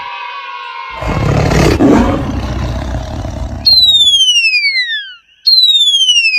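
Cartoon sound effects: an animal-like roar for about three seconds, then two whistles that slide steadily down in pitch, one after the other.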